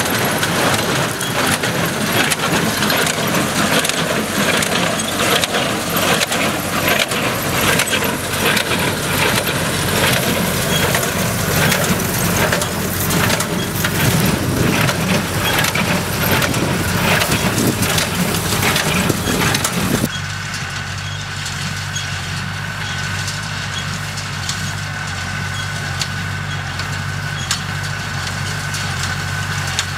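Tractor and New Holland Hayliner 286 small square baler working hay, a dense clattering, crunching racket over the diesel engine. About two-thirds of the way through it changes abruptly to a quieter, steady engine hum with a thin whine.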